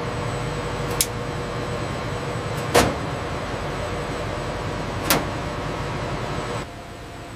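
Steady equipment hum with a faint high whine, broken by three sharp clicks about two seconds apart; the hum drops away about a second before the end.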